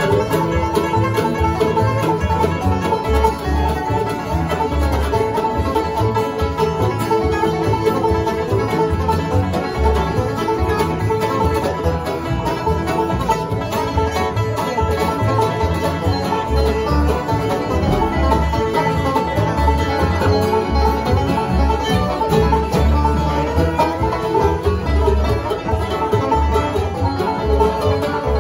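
Live acoustic bluegrass instrumental: a five-string banjo rolls over fiddle, acoustic guitar and a plucked upright double bass, playing continuously at a steady tempo.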